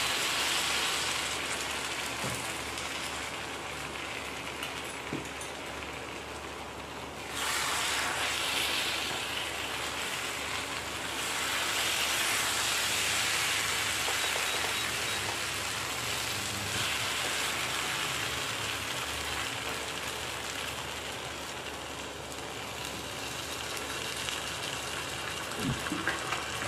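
Chicken and vegetable gravy sizzling in a nonstick wok as cornflour slurry is poured in to thicken it and stirred with a wooden spatula. The steady hiss grows louder about seven seconds in.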